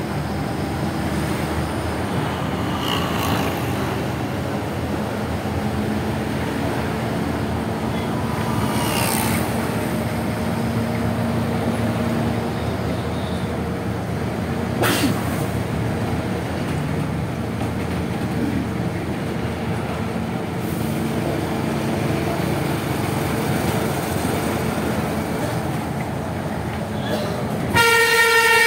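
Steady road noise of a vehicle driving through city traffic, heard from inside with the window open, with faint horns now and then. Near the end a loud, multi-note horn starts blaring and keeps going.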